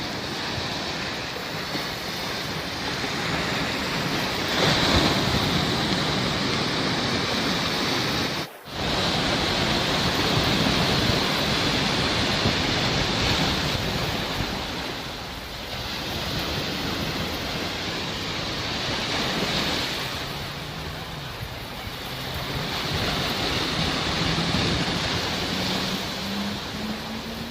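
Sea waves washing ashore in slow surges that swell and recede every few seconds. The sound drops out for a moment about eight and a half seconds in.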